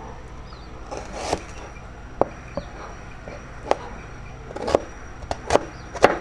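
A string of irregular sharp knocks and clatters, about eight in six seconds and coming faster in the second half, as from kitchen work. Faint bird chirps and a steady low hum run underneath.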